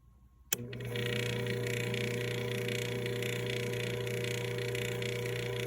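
Pool pump switching on with a sharp click about half a second in, then the motor running with a steady hum and whir.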